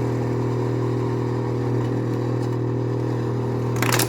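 Samsung refrigerator's ice maker running with a really loud, steady low buzzing hum, with a brief rattle near the end. The owner hears this loud sound as the ice maker now works again after its frozen parts were thawed.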